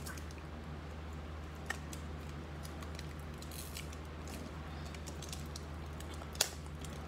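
Scissors snipping at a foil trading-card pack that is hard to open by hand: a sharp snip about a second and a half in and a louder one near the end, with faint wrapper rustling in between.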